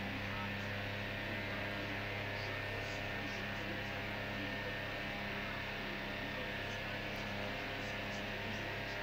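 Small EasyAcc high-velocity DC desk fan running, its motor giving a steady low electric hum.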